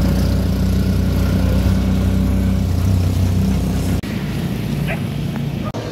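Steady low rumble of a car running, heard from inside the cabin, for about four seconds; then it cuts abruptly to quieter outdoor background noise.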